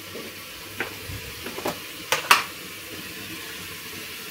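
Panelada (beef tripe and offal) frying with onion and garlic in lard in a pot, a steady sizzle. A few sharp knocks of a utensil against the pot come through it, the loudest a little after two seconds in.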